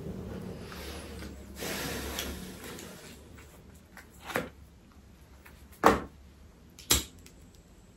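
A soft rustle over the first few seconds, then a cigarette lighter struck three times, sharp clicks a second or so apart, the last two the loudest, as a cigarette is lit.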